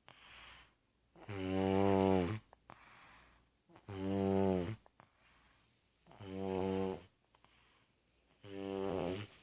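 A toddler snoring in sleep: four snores about two and a half seconds apart, each lasting about a second with a low, steady pitch. Quieter breaths come in between.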